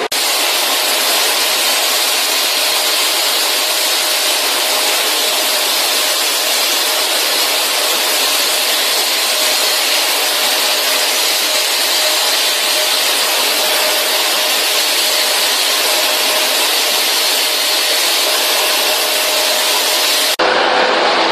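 High-pressure spray jet from a handheld nozzle blasting water or steam against metal surfaces: a loud, steady hiss that changes abruptly about a second before the end.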